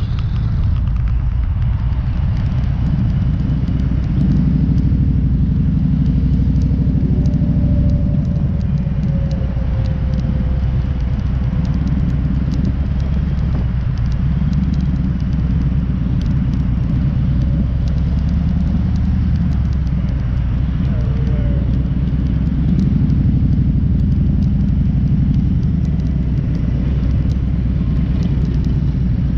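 Motorcycle engine running at low speed as the bike rolls slowly: a steady low rumble with a fast, even firing pulse.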